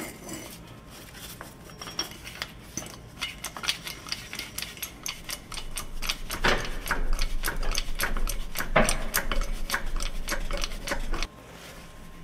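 Hydraulic bottle jack being worked with its steel pump handle under a truck frame, a run of quick irregular metal clicks and clanks with a few heavier strokes in the second half. A low hum joins partway through and cuts off shortly before the end.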